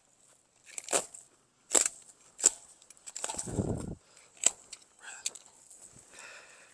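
Hand cutters snipping through tangled briars and twisted growth: four sharp snaps about a second apart, with a second of rustling brush in the middle.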